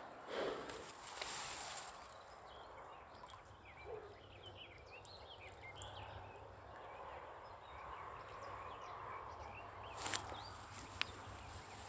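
Faint birdsong: many short, high chirps through the middle of the stretch. A few sharp clicks come near the start and again near the end.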